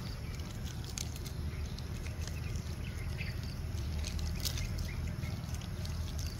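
Outdoor ambience: a steady low rumble with scattered faint clicks and crackles.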